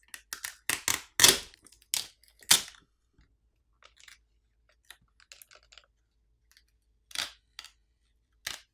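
Adhesive-backed flex cables being peeled off a smartphone's frame: a run of sharp crackles and clicks, loudest in the first few seconds, with a few more near the end.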